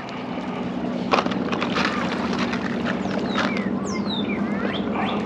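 Steady low motor drone throughout, with quick falling chirps of birds calling over it from about three seconds in and a sharp click about a second in.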